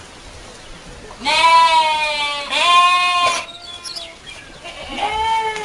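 Goats bleating: three drawn-out, wavering bleats, two back to back about a second in and a third near the end.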